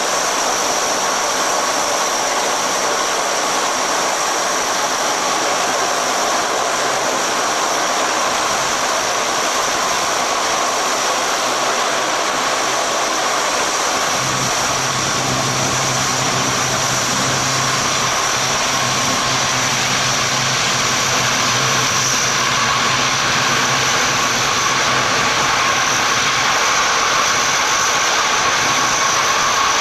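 Lockheed L-188 Electra's Allison turboprop engines running on the ground during pushback: a loud, steady whine with high tones over a constant rush. A low steady hum joins about halfway through.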